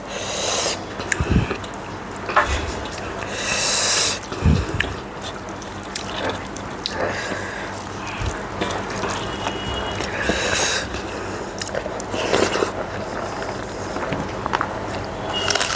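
Close-miked eating sounds: fingers squishing rice mixed with thin dal, and wet mouth sounds of chewing. Several short, sharp hissing breaths come through them, the reaction to fiery chilli heat.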